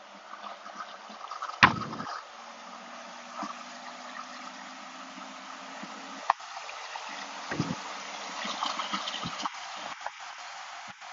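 Cabin noise of a 1995 Suzuki Carry mini truck driving at speed and accelerating: steady road and wind rush inside the cab. A few knocks come through, the loudest a sharp one about two seconds in.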